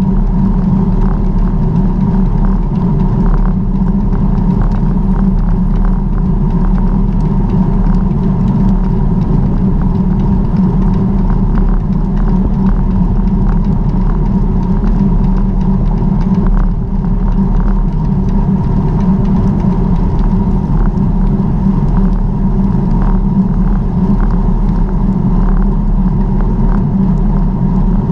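Steady loud rumble of wind and road noise from a camera riding along on a moving bicycle, with faint ticks repeating throughout.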